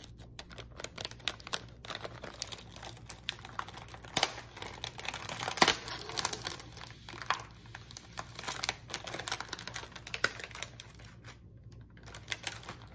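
Plastic-and-foil Oreo cookie package crinkling and crackling as it is peeled open by hand, with a few sharper snaps around four to six seconds in and a brief lull near the end.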